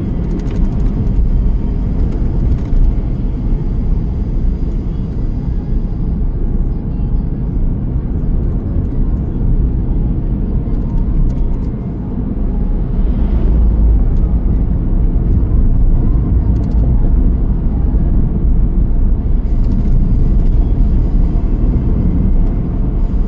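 A car being driven: steady low road and engine rumble.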